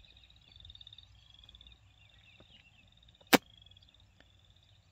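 Faint high chirping repeating a little under once a second, typical of a cricket, with one sharp loud click about three seconds in.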